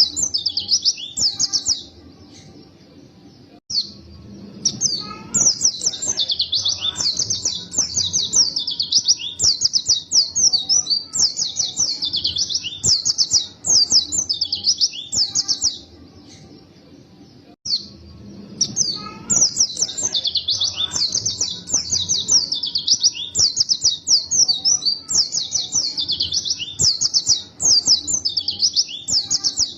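Pleci (white-eye) singing hard, long runs of quick high twittering notes. The song breaks off briefly about two seconds in and again about sixteen seconds in.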